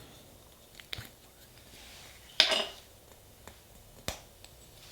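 Light clicks and taps of small nail-stamping tools being handled on a tabletop, with one short scrape about two and a half seconds in.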